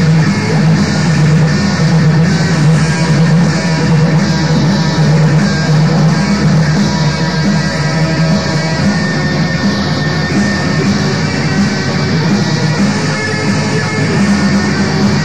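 Raw black metal recording: distorted electric guitar playing over drums, dense and unbroken.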